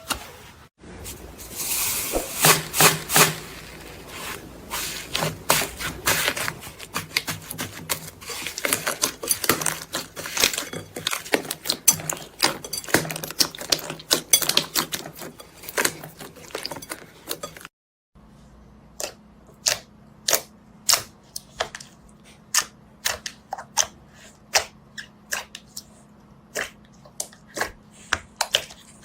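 Slime being squeezed and pressed, making dense, irregular crackling clicks and pops; after a break about two-thirds through, slower separate pops come about two a second.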